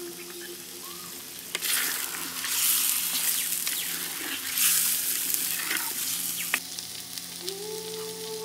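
Raw chicken pieces coated in green mint masala being stirred and turned in a hot clay pot, sizzling and scraping with small clicks. The stirring is loudest for about five seconds from a second and a half in, then eases off.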